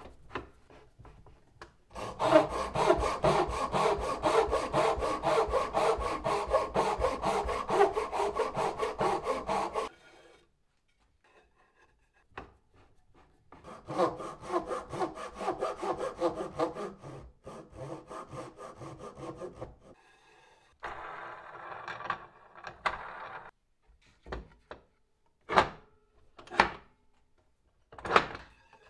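Handsaw cutting a small walnut workpiece clamped upright in a wooden screw vise: two long runs of quick, even strokes, then a shorter rubbing stretch. Near the end come a few sharp knocks as the vise's wooden handle is turned.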